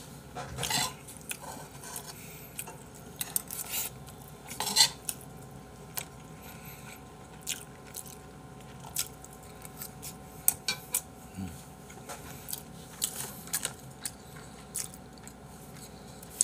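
Cutlery clinking and scraping against a dish in irregular sharp taps, with a louder clack about five seconds in.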